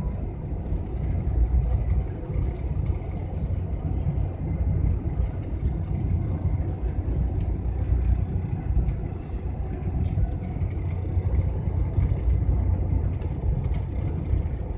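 GAZelle van driving on an asphalt road, heard from inside the cab: a steady low rumble of engine and tyre noise.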